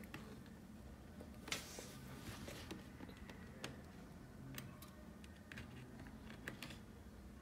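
Faint clicks and rustles of hands handling a plastic LED light strip and working a USB cable plug into its port, with a louder scraping rustle about a second and a half in.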